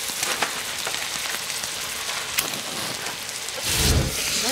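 Chicken pieces sizzling and crackling in a cast-iron pot as Calvados is poured in. About three and a half seconds in comes a loud whoosh as the Calvados catches fire for the flambé.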